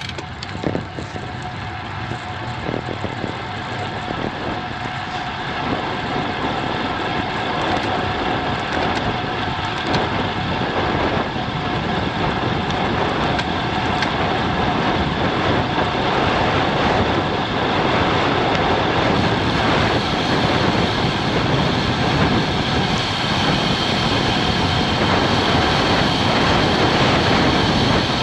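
Rushing wind on the microphone and road-bike tyres humming on asphalt during a fast downhill, growing steadily louder as the speed builds.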